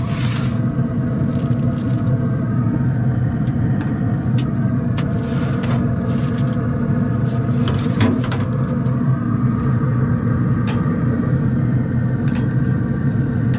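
A steady machine hum runs throughout. Over it come scattered sharp clicks of metal grill tongs and two brief crinkles of aluminium foil, at the start and around five seconds in, as a foil-wrapped rack is handled.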